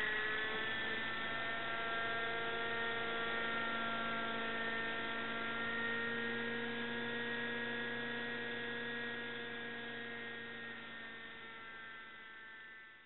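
Radio-controlled nitro helicopter with an MD530 scale body hovering: its glow-fuel engine and rotors make a steady, pitched hum with several tones. The sound fades over the last few seconds.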